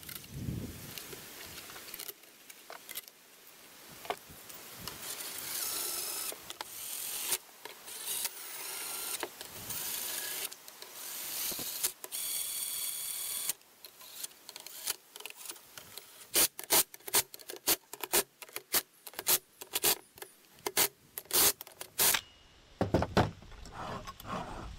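A cordless drill/driver tightening steel bolts into a metal clamp lift bracket, amid the clatter of metal parts being handled. The motor whirs briefly about halfway through, then comes a run of sharp, loud clicks and knocks as the bolts are tightened down.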